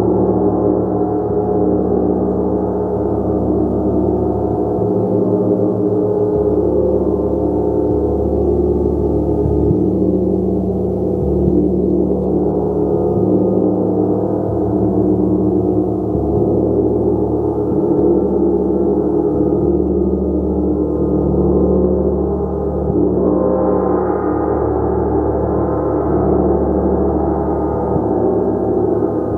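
Gong played continuously as a sustained wash of many layered, ringing overtones, steady and loud without breaks. The sound brightens a little about two-thirds of the way through.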